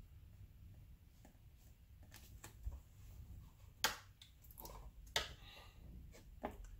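Quiet handling of watercolour painting tools: scattered light taps and clicks, with two sharper clicks a little past halfway.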